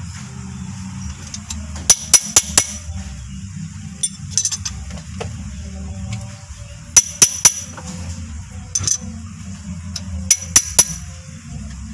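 Steel spanners clinking against a rocker arm and its adjusting screw and locknut in four short bursts, as the valve clearance is set and the locknut tightened on an engine misfiring from a valve that was not opening and closing. A steady low hum runs underneath.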